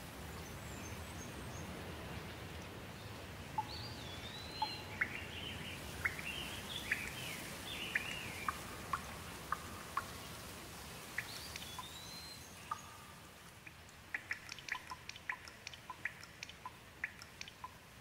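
Steady rain falling, with a bird chirping on and off through the first half. Later the rain thins, and single drips tick sharply, several a second.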